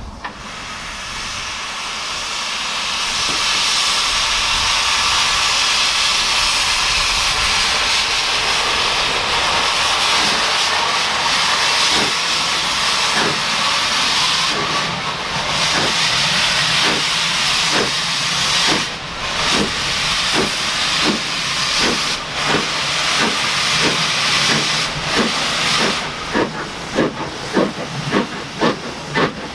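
Steam locomotive letting off a loud, steady hiss of steam, then starting away with exhaust chuffs. The chuffs begin slow and spaced out partway through and quicken toward the end.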